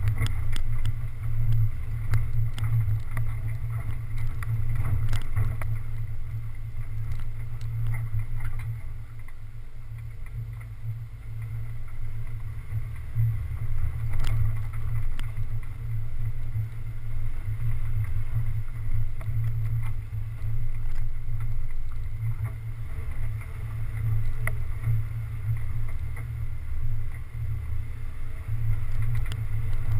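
Low, wavering rumble of a 4x4 driving along a rough dirt track, picked up by a camera mounted on its bonnet. Scattered short knocks come from the bumpy ground.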